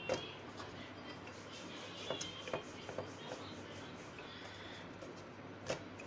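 Paratha dough being rolled out on a round rolling board: rubbing of the rolling pin over the dough, with a few light knocks of the pin against the board, the sharpest near the end.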